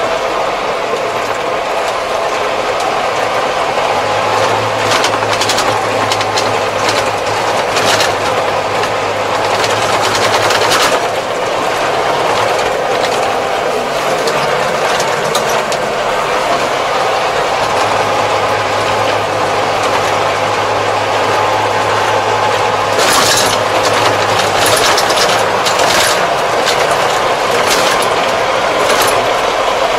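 Kubota 75-horsepower tractor driving on a paved road, heard from inside its cab: a steady engine and drivetrain drone with scattered sharp rattles and clicks from the cab.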